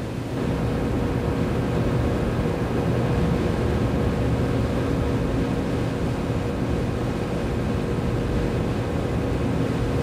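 Steady droning hum with a faint constant tone in it, unchanging throughout.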